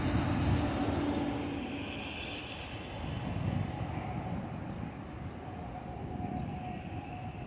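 Airbus A319 jet passing overhead in its climb: a steady engine rumble with thin whistling tones over it, the whistle of the fuel over-pressure protector (FOPP) vent cavities under the wings that A320-family jets are known for. The sound is loudest at first and eases slightly as the jet climbs away.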